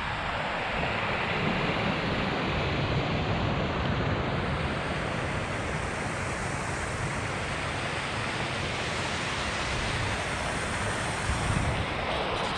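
Steady rushing noise: wind buffeting the microphone of a camera on a moving bicycle, blended with running water from rock waterfall cascades.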